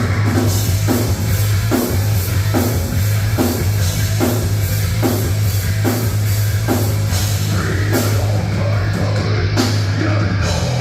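Live rock band playing loudly, with drum hits landing in a steady beat a little under a second apart.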